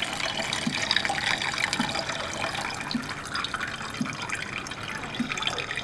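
Water being poured from a mug into a pour-over coffee maker, splashing and trickling steadily as it fills.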